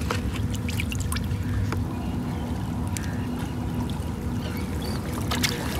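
Water lapping against shoreline rocks over a steady low rumble and a faint steady hum, with light scattered ticks.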